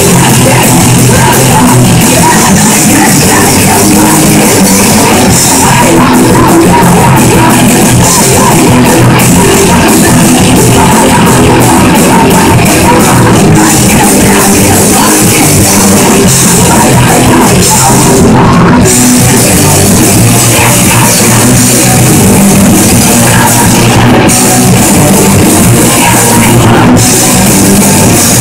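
Punk rock band playing live and loud: two electric guitars, bass guitar and drum kit, with vocals into the microphones.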